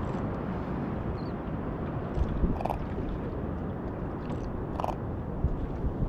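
Steady wind and water noise in a small open boat on the sea, with a short creak about every two seconds and a few low knocks.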